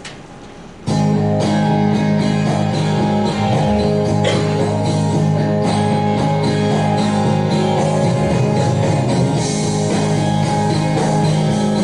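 Instrumental intro of a worship song with strummed guitar to the fore, coming in suddenly about a second in after a brief lull and then playing steadily.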